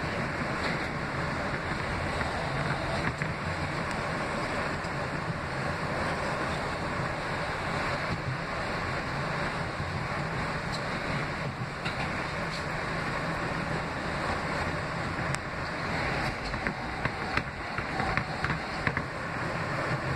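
R160B subway car running at speed, heard from inside the car: a steady rumble and rush of steel wheels on rail. Short clicks and rattles come in over the last few seconds.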